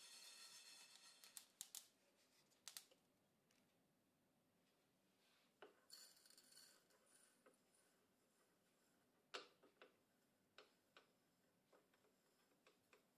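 Faint handling of toasted seeds: a short hiss of sesame, flax and millet seeds shaken in a frying pan at the start, then a brief rattle as the seeds are poured into the steel cup of an electric grinder about six seconds in. A few light clicks and knocks follow as the grinder's lid goes on.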